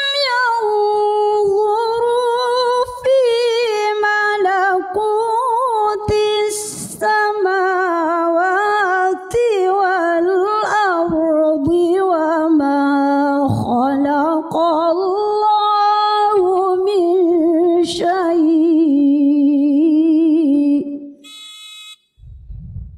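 A woman's unaccompanied Quran recitation (tilawah), sung as one long ornamented, melismatic phrase with a wavering vibrato that rises and falls. The phrase ends about 21 seconds in and is followed by a soft intake of breath.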